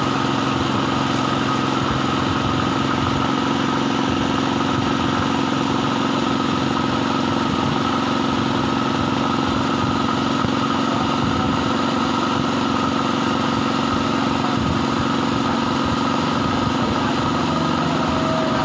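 A small engine running steadily at a constant speed, with no revving.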